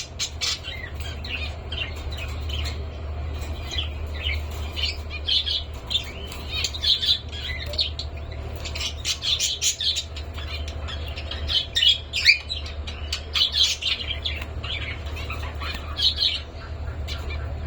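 Pet cockatiels chirping and calling over and over, short high calls coming in quick clusters.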